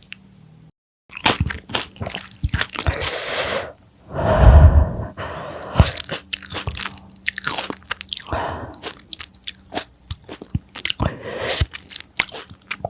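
Close-miked crunchy eating: bites and chewing crackle in quick irregular clicks. About four seconds in comes one loud, low thump lasting about a second.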